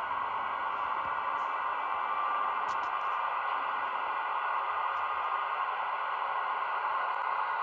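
Model V63 electric locomotive running off slowly, a steady whirring hiss with a held whine.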